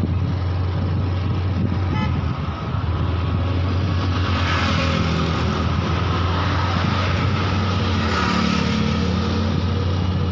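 Motor vehicle running steadily on a road, a low engine hum with road and wind noise, swelling twice as traffic passes, about four seconds in and again near the end.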